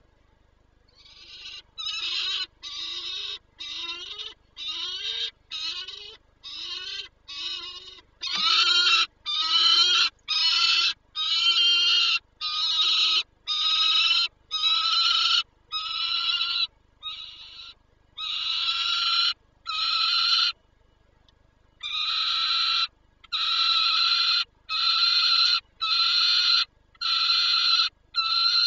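Male peregrine falcon calling loudly as he arrives at the nest box: a long series of harsh, drawn-out screams, about one a second, with a short break about two-thirds of the way through.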